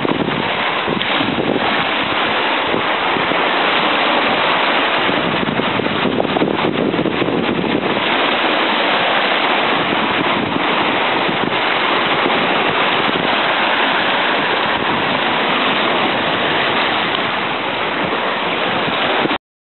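Sea surf washing and breaking against rocks, with wind buffeting the microphone; the sound cuts off suddenly near the end.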